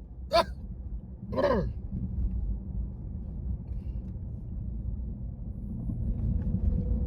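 Steady low road rumble inside a moving car, with a short click just after the start and one brief vocal sound falling in pitch about a second and a half in.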